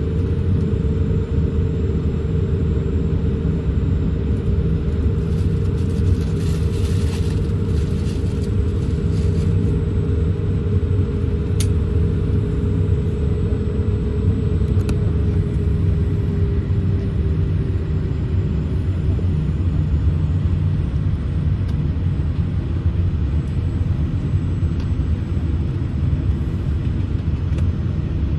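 Cabin noise of a Boeing 787-8 taxiing: a steady low rumble, with a pair of steady engine tones that slide lower and fade out about two-thirds of the way through, and a couple of faint clicks.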